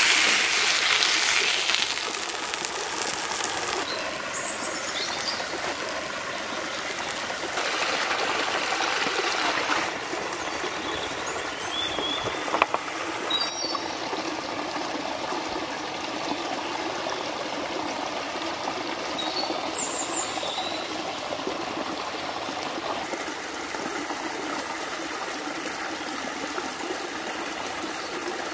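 Steady running water, like a forest stream, with a few short bird chirps now and then. A single sharp knock about twelve seconds in.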